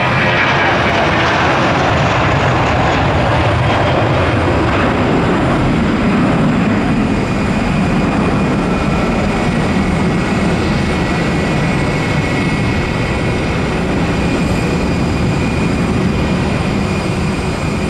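Airbus A320's twin jet engines at takeoff thrust: a loud roar with a high whine that slides down in pitch over the first few seconds as the airliner passes, settling into a steady low rumble as it climbs away.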